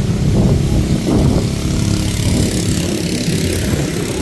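An engine running steadily: a low hum with a rumble underneath.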